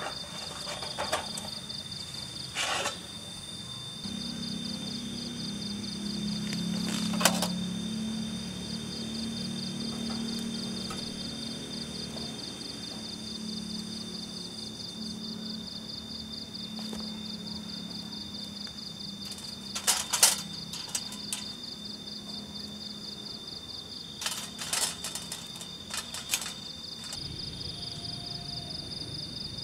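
Crickets trilling steadily in the night. A few sharp clicks and knocks stand out over them, the loudest about 20 seconds in and a quick cluster a few seconds later.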